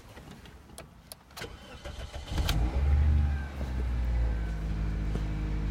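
Pontiac Vibe's 1.8-litre four-cylinder engine cranking and catching about two seconds in, flaring up briefly, then settling into a steady fast idle. A few light clicks come before the start.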